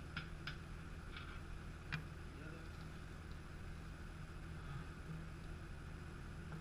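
A few light clicks and taps in the first two seconds, the last and sharpest about two seconds in, as parts are handled during motorcycle front wheel removal, over a steady low hum.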